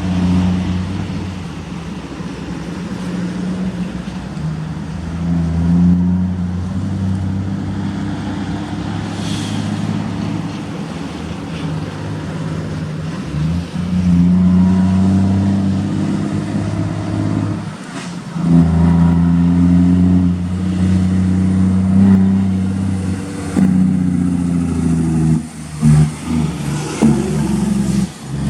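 Scania truck's diesel engine rumbling. Its pitch and loudness hold steady for a few seconds at a time, then step up or down several times, with a brief break about 18 seconds in.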